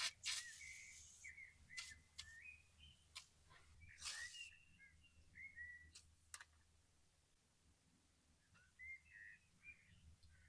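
Faint bird chirps: short calls with quick pitch slides, coming in scattered bursts, with a few sharp clicks in the first half.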